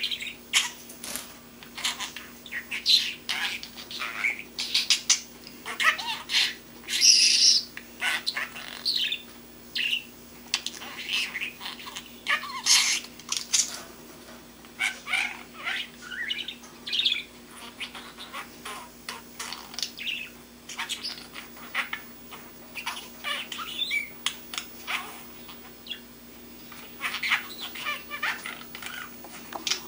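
Young budgerigar chattering in an irregular run of short chirps, squawks and warbles: a baby budgie's babble as it begins learning to talk.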